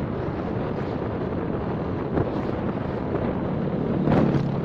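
Wind rushing over the microphone of a moving motorcycle, with the engine running underneath; a short louder swell near the end.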